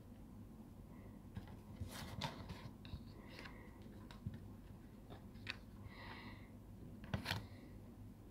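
Playing cards being handled in the hands, with a few soft card snaps and flicks, the strongest about two seconds in and again near the end. A few faint, short high-pitched tones come in between.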